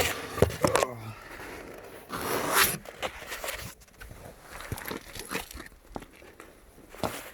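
Rustling and scraping handling noises with scattered short clicks, and a longer rustling hiss about two seconds in.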